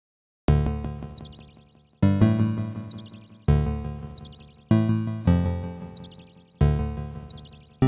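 Roland PROMARS software synthesizer preset playing six notes, each starting with a quick falling zap and then fading away. They begin about half a second in and follow roughly every second and a half.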